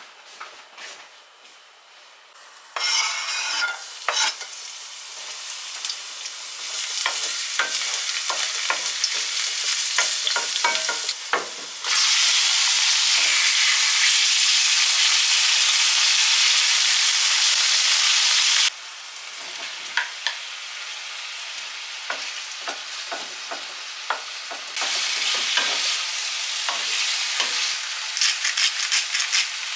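Chicken breast pieces and sweet potato frying in olive oil in a frying pan, stirred with a wooden spatula: sizzling with many small scraping clicks. It starts quiet, and the sizzling picks up about three seconds in. A loud, steady sizzle holds for about seven seconds in the middle, then falls back and picks up again near the end.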